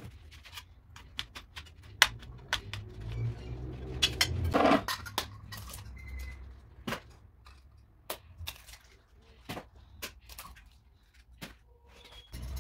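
Irregular sharp taps and knocks of food preparation at a kitchen counter, about twenty over the stretch, with a denser run of knocks a little before the middle.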